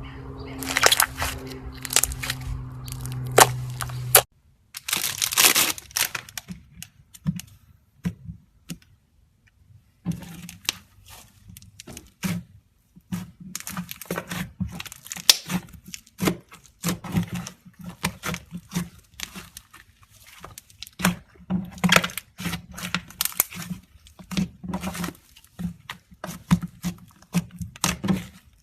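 Slime being squeezed and pressed by hand, making rapid irregular crackling and popping clicks. A low hum underlies the first few seconds and cuts off, and the clicking pauses for a few seconds before picking up again, dense and steady.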